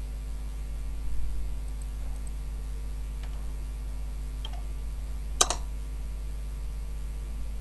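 A few faint keystrokes on a computer keyboard, with one sharper, louder key press about five and a half seconds in, over a steady low hum.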